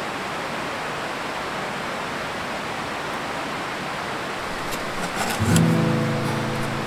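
Steady rushing outdoor noise, then plucked guitar music comes in about five and a half seconds in, with a few light clicks just before it.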